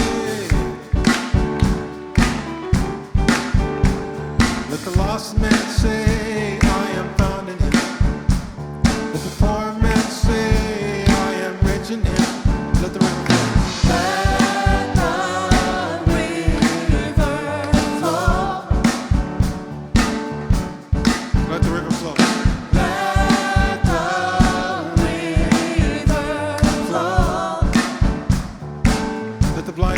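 Gospel worship band playing, with a drum kit keeping a steady beat under it; singing voices carry wavering melodic lines through the middle and later part.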